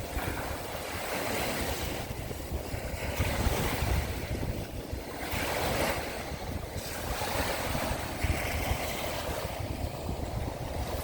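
Sea waves washing onto the shore, one swell after another every couple of seconds, with wind rumbling on the microphone.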